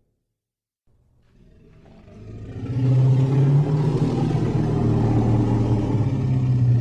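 Mûmak (giant war elephant) call sound effect: a long, deep, drawn-out bellow that fades in after about a second of silence and then holds loud and steady.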